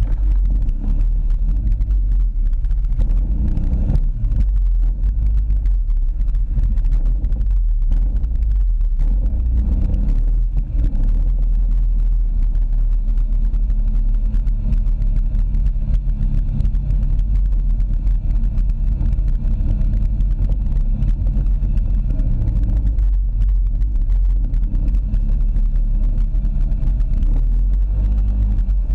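ATV engine running steadily as it rides along a dirt trail, with a heavy low rumble throughout.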